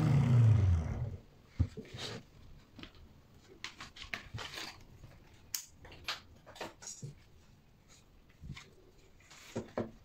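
Low rumble of the hand-spun magnet rotor of a homemade microwave-transformer generator, sliding down in pitch and dying away about a second in as it coasts to a stop. After it come scattered light clicks and knocks from wires and parts being handled.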